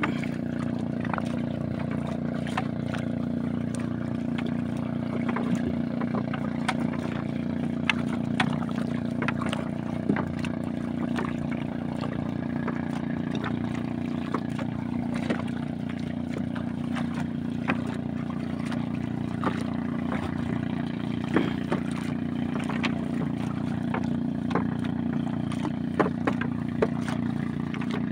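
Small engine of a motorised outrigger canoe running at a steady low drone, with scattered light clicks and knocks as a fishing net is paid out over the side.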